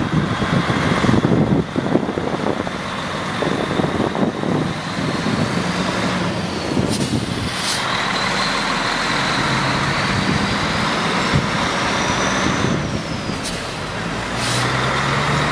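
Heavy truck's diesel engine running steadily, with two short hisses of released air about seven seconds apart and a faint high whine that slowly rises, then drops.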